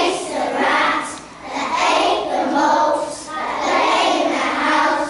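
A class of young children singing together in unison, in phrases with brief breaks between them.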